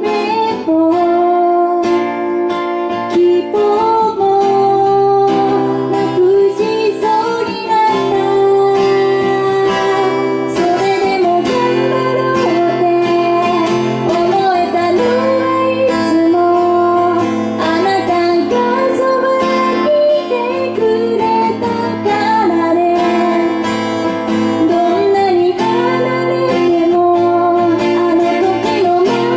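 A woman singing a song while strumming an acoustic guitar.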